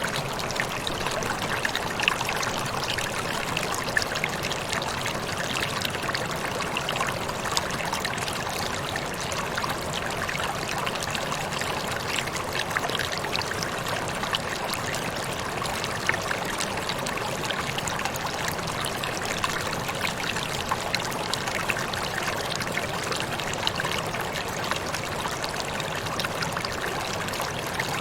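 Waterfall: water pouring and splashing steadily, with many small, sharp splashes standing out.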